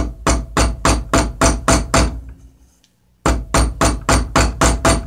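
A hammer pounding the end of a 14-gauge copper wire flat, in quick blows of about four a second with a slight metallic ring. There is one run of about eight blows, a pause of about a second, then a second run of about seven.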